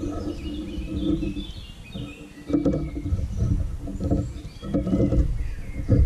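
Woodland birds chirping in short descending calls over a low, uneven rumbling noise, with a few faint clicks.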